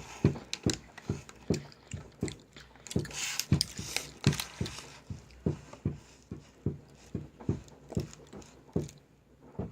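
Close-up mouth sounds of chewing a firm, chewy sour candy: irregular short clicks and smacks, about two a second, with a brief rustle partway through.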